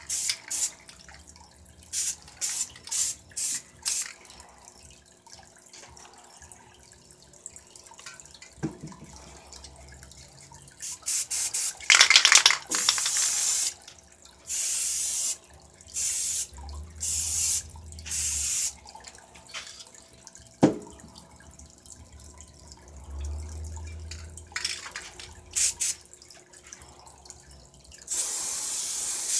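Aerosol spray paint can hissing in bursts, from quick puffs to longer sprays of a second or two, with pauses between them. Two sharp knocks fall between the sprays.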